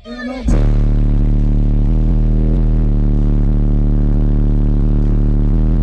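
Very loud, steady deep bass from a car audio system of ten Resilient Sounds Platinum 15-inch subwoofers driven by Taramps Bass 30K amplifiers. The bass cuts out for about half a second at the start, then comes back.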